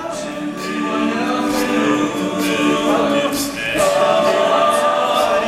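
Male a cappella group singing sustained wordless chords over a steady beatboxed rhythm of crisp, hi-hat-like vocal percussion.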